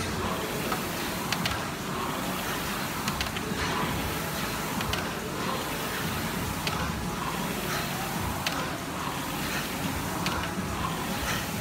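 Concept2 air rowing machine in use: the fan flywheel whirs steadily and surges with each stroke, about one every second and three-quarters, with a faint click at each stroke.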